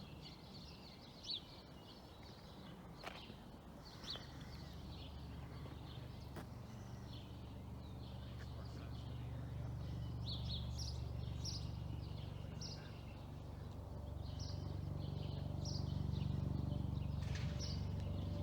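Small birds chirping repeatedly outdoors, with a low steady hum underneath that grows louder through the second half.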